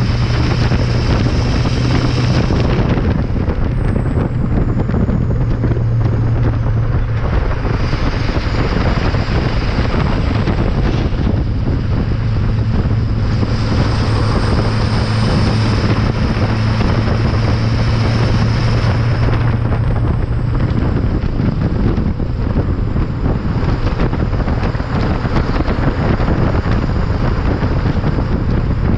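LLY Duramax 6.6 L V8 turbo-diesel heard at the tailpipe while the truck drives, a steady low exhaust drone with wind buffeting the microphone. A faint high whistle rises and falls over it a few times.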